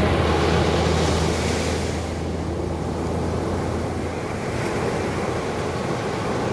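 Ocean surf breaking and washing up a sandy beach, a steady rushing wash of water. Music with steady low tones fades out over the first few seconds.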